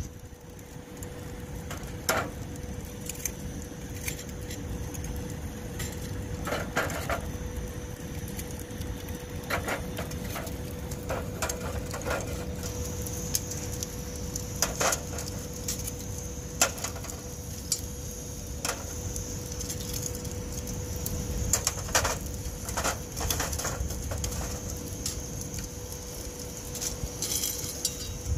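Scattered sharp clicks and cracks, irregularly spaced, over a steady low rumble and a faint steady tone.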